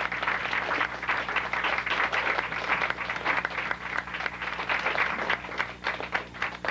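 Audience applauding after a song, the clapping easing off near the end.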